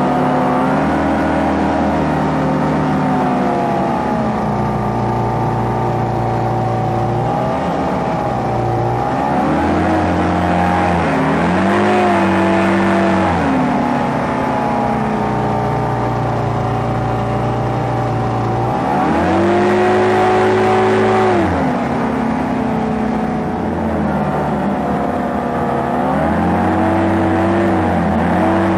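Small hovercraft's engine and fan running under way, with the engine pitch rising and falling as the throttle is opened and eased. There are clear surges about a third of the way in, about two-thirds in and again near the end.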